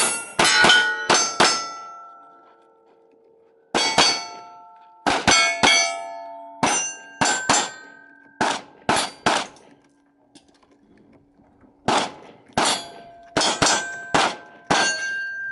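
Canik TP9SFx 9 mm pistol fired in quick strings of two to five shots, about two dozen in all. Many shots are followed by the ringing clang of struck steel plate targets. There are short gaps between the strings.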